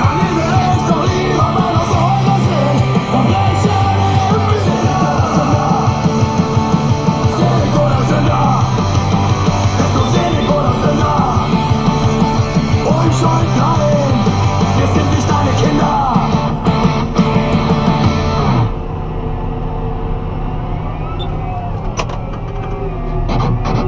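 Loud rock music with guitar and sung vocals over the low drone of a tractor engine. About three-quarters of the way through, the music stops suddenly, leaving the steady drone of the Case Magnum 340 CVX engine heard from inside the cab.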